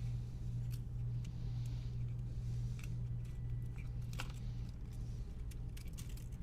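Scattered light clicks and taps of small plastic controller parts and tools being handled, over a steady low hum.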